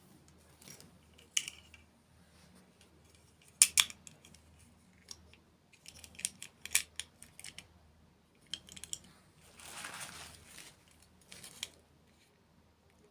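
Close-miked eating sounds: irregular crisp crunches and sharp clicks, loudest about four seconds in and clustered around six to seven seconds, with a brief rustle about ten seconds in.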